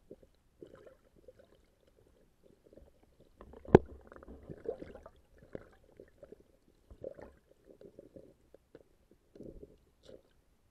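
Muffled underwater knocks, clicks and rustles heard through an action camera's waterproof housing. They come in scattered bunches, busiest in the middle, with one sharp loud knock a little under four seconds in.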